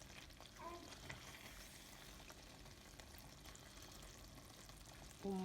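Faint ladling sounds: a ladle stirring and scooping thick arroz caldo (chicken rice porridge) from the pot into a bowl, with a few light clinks.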